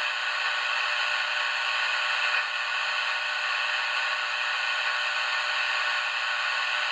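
Steady static hiss from a CB radio receiver's speaker, with no station coming through.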